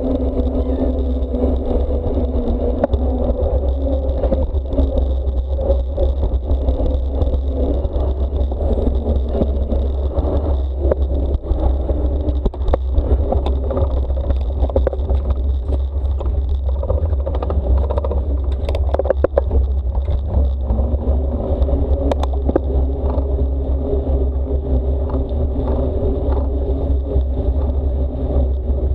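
Mountain bike ridden along an asphalt street, heard from an action camera on its handlebars: a steady wind rumble on the microphone with the hum of the tyres on the road and frequent clicks and rattles from the bike.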